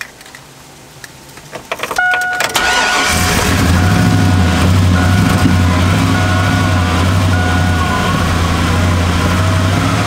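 2002 Chevy Avalanche's 5.3-litre V8 cranking over briefly about two seconds in and catching a second later on a cold start, then idling rough with some kind of knock, not catastrophic.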